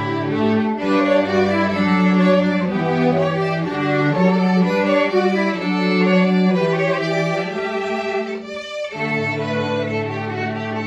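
Small string ensemble of violins and lower strings playing together in sustained bowed notes. The sound drops out briefly a little after eight seconds in, then the ensemble comes back in.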